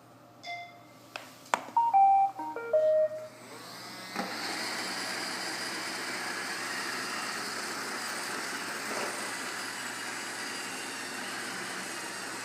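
Roomba robot vacuum playing its short tune of several beeps, with a click among them. About three seconds in, its vacuum motor and brushes start and run steadily.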